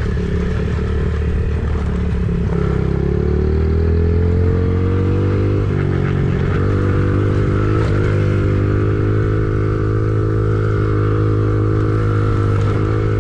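An engine running steadily. Its pitch rises over about three seconds, a few seconds in, as it speeds up, then holds at the higher speed.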